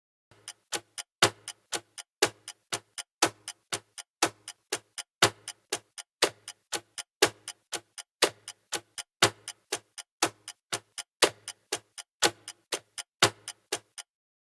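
A looped rhythm of sharp electronic clicks, about four to five a second with a stronger one once a second, stopping shortly before the end.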